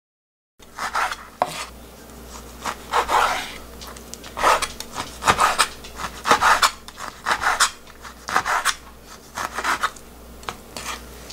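Chef's knife chopping salted shark meat (dombaegi) into chunks on a wooden cutting board. The strokes are repeated and uneven, each one a slice through the firm meat ending in a knock on the board. The strokes start after a moment of total silence.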